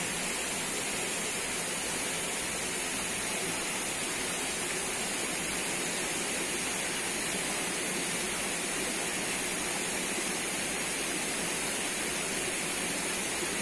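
Steady rush of flowing river water, an even hiss without change.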